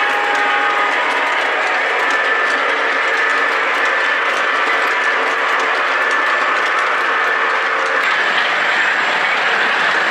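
O gauge model train rolling along its track: a steady hum with light, rapid clicking from the wheels over the rail joints, the sound shifting about eight seconds in.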